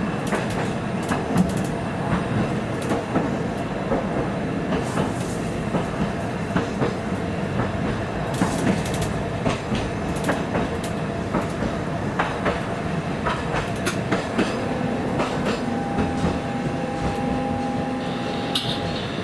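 Toyohashi Railway 780-series tram running on street track, heard from inside the car: a steady running rumble with scattered wheel and rail-joint clicks. About fifteen seconds in, a steady two-pitched whine sets in for a few seconds.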